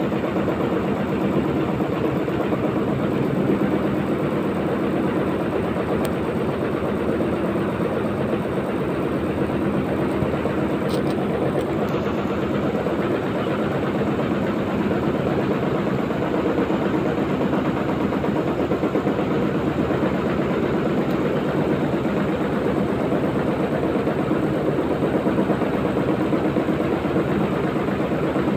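A motor running steadily with a rapid, even pulse.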